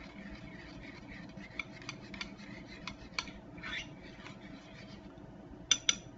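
A spoon stirring a melted mixture in a ceramic bowl, scraping and clicking against the sides. Near the end a quick run of sharp clinks begins, about six a second.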